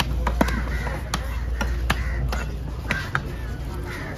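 Large knife cutting a tuna fillet on a wooden log chopping block: sharp, irregular knocks as the blade strikes the wood, about two or three a second.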